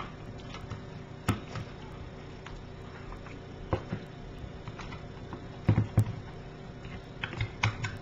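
Small plastic clicks and taps from the clip-fastened plastic housing of an Electrolux Dishlex DX302 dishwasher control module as its side clips are lifted and the case is worked open. The clicks are scattered, with a quick cluster near the end.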